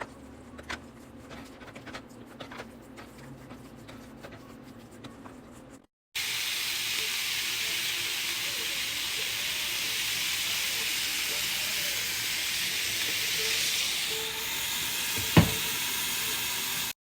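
Food sizzling steadily as it fries in a hot pan, starting abruptly about six seconds in, with one sharp knock about fifteen seconds in. Before it, faint scattered clicks and taps.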